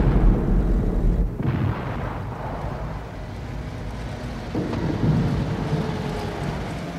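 A car driving: a loud, deep engine rumble for about the first second and a half, then steadier engine and road noise, rising again about two-thirds of the way through as a car comes along the street.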